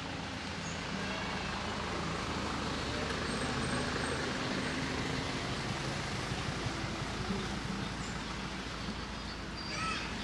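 Steady engine noise of a motor vehicle or road traffic, a low hum that swells slightly a few seconds in. A short high-pitched call comes near the end.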